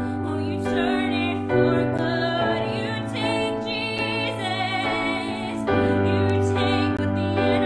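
A woman singing a worship song, accompanying herself on a digital stage piano. Her held notes waver, over sustained piano chords whose bass note changes about a second and a half in and again near the end.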